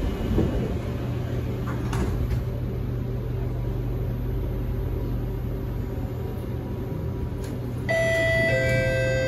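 SMRT C751B metro car's interior: the doors knock shut in the first two seconds over a steady low hum from the stopped train. About eight seconds in, steady whining tones at fixed pitches come in and step as a second set joins, the traction equipment starting up as the train begins to pull away.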